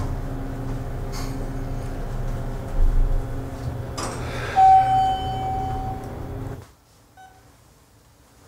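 Steady low hum of an elevator car in motion, a low thud about three seconds in, then a single sustained chime tone announcing its arrival. The sound then drops sharply to quiet hospital-room tone with one faint electronic beep from a patient monitor.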